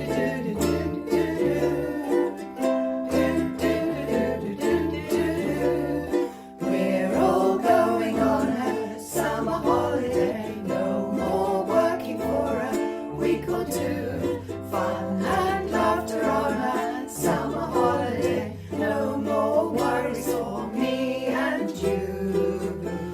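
Instrumental intro of an acoustic pop song: strummed ukulele over a stepping bass line, with a busier melody joining about seven seconds in.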